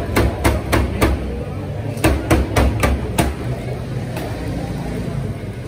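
Meat cleaver chopping fried chicken in a metal tray: a run of sharp chops at about four a second, a short pause, a second run of about five chops, then one last chop about four seconds in.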